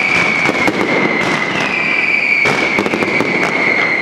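Fireworks with a steady high whistle that sinks slightly in pitch, a fresh whistle taking over about one and a half seconds in, over dense crackling and popping that thickens a little past halfway.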